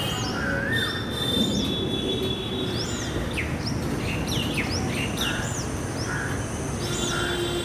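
Small birds chirping, short high arched chirps and quick downward whistles repeating every half second or so, over a steady low background rumble.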